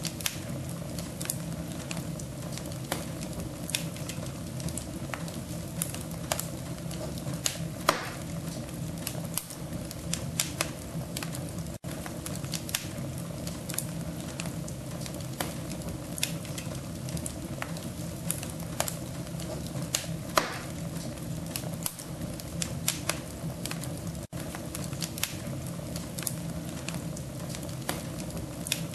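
Wood fire crackling in a wood-burning stove: irregular sharp pops and snaps over a steady low rush of burning. It cuts out for an instant twice, about twelve and twenty-four seconds in.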